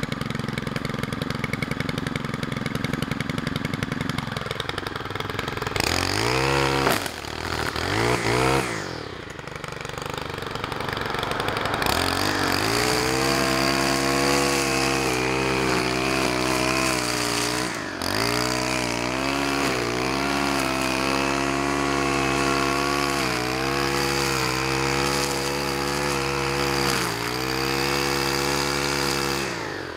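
Stihl KM90R KombiEngine (4-MIX) running a string-trimmer head: it idles steadily, is revved up and back down twice, then is held at high revs cutting grass, its pitch dipping briefly now and then under load before dropping back near the end.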